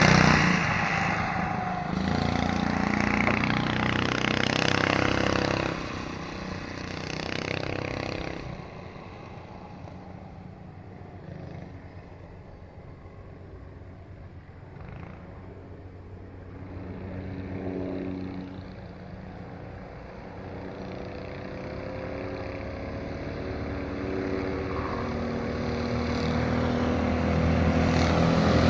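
Homemade go-kart's 6.5 hp Honda-clone single-cylinder four-stroke engine, still fitted with its governor, running as the kart drives off and fades into the distance, its engine note rising and falling with speed. It grows louder again near the end as the kart comes back.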